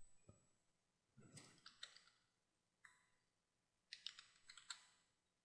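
Faint clicks of a computer keyboard and mouse, typing a short word. The clicks come in quick clusters about a second in and again around four seconds in.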